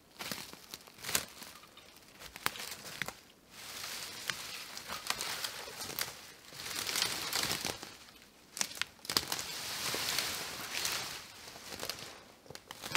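Dry brush and twigs rustling and crackling as someone moves through the undergrowth, in several stretches of a second or two with sharp snaps of twigs between.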